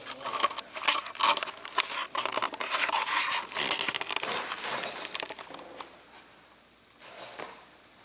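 Loose bolts and small metal parts clinking and rattling as they are handled and picked through, with some rustling. It dies down after about six seconds, with one short rattle near the end.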